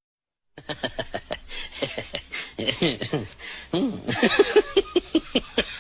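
Rapid laughter in short, choppy bursts that slide up and down in pitch, starting after half a second of silence and peaking about four seconds in.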